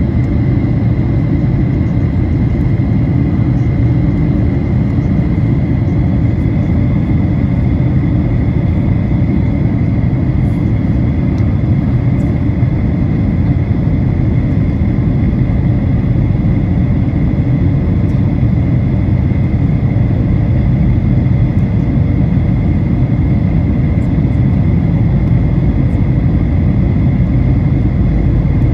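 Steady cabin noise inside a Boeing 737-900ER in flight: its CFM56-7B jet engines and the airflow make a deep, even rumble, with a thin steady whine above it.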